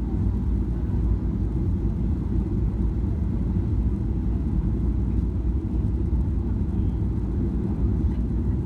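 Cabin noise inside a Boeing 737-700: a steady low rumble of the CFM56 engines and airflow, with no distinct knocks or changes.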